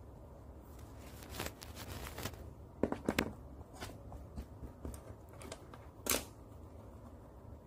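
Paintbrush scrubbing red paint onto paper in short strokes: a series of faint scratchy brushing sounds, bunched about three seconds in, with a louder stroke about six seconds in.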